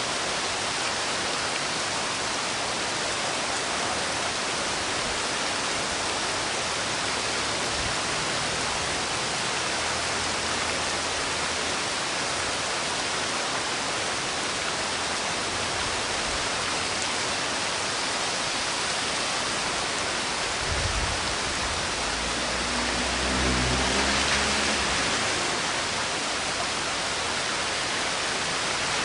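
Steady rain heard as an even, dense hiss, close to white noise. A low rumble swells and fades about three-quarters of the way through.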